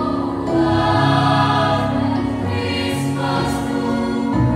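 Mixed choir of young female and male voices singing in harmony, holding sustained chords that shift to new ones every second or so.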